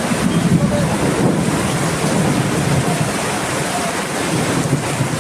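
Heavy rain pouring down in a downpour, a loud, steady hiss.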